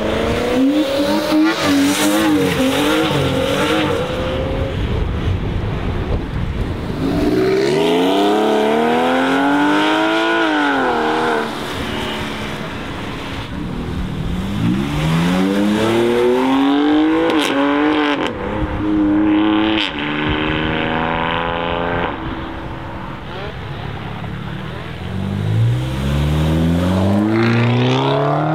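Modified performance cars accelerating away one after another, their exhausts loud and the engine note climbing and dropping back at gear changes. There is a wavering rev at the start and then three strong pulls: one about 8 seconds in, one around 15 seconds, and one near the end.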